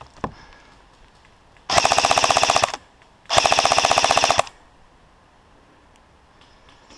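Airsoft rifle firing two full-auto bursts, each about a second long, with a short pause between them: a fast, even rattle.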